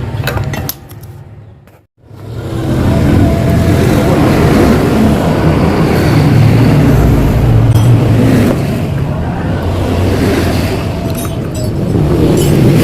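Yamaha RX-King 135 cc single-cylinder two-stroke engine running through an exhaust whose baffles have been hollowed out for a crisp, growling note. It idles, cuts out for about a second, then runs much louder and rougher for the rest.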